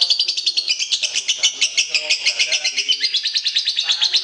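Recorded songbird song: a fast, unbroken stream of high chirps and trills, with fainter lower calls underneath.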